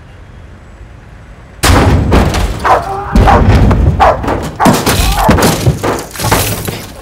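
Loud banging and thumping against the inside of an ambulance's rear compartment, starting abruptly about a second and a half in, mixed with shrill animal-like cries and a dog barking.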